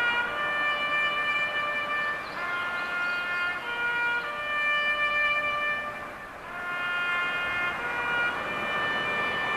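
Slow music of long held notes that change every second or two, dipping briefly about six seconds in.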